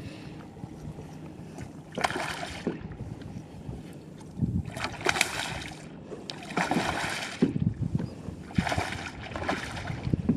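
Water splashing in short bursts, four or five times, as a hooked redfish thrashes at the surface beside a kayak hull. Light wind on the microphone and a few low knocks run underneath.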